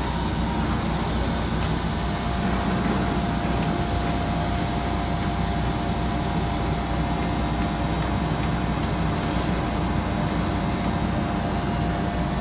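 Industrial blow moulding machine for 1000 L IBC tanks running: a steady low mechanical drone with a faint constant whine over it.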